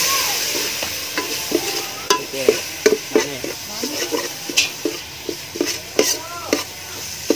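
Food sizzling in a hot metal wok, the hiss loud at first and fading, while a ladle stirs and scrapes the pan with repeated clinks and short squeaky scrapes.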